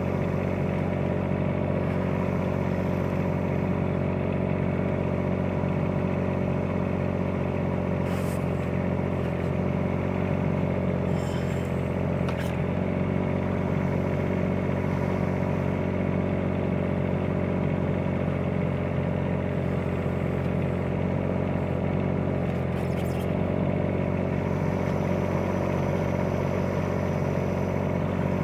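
Bobcat 418 mini excavator's diesel engine running steadily, with a few short knocks from the shovel handle and track.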